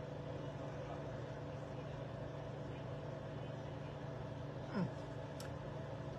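Steady, quiet room hum with a few constant tones, like a running appliance or fan, with one brief falling-pitch sound nearly five seconds in.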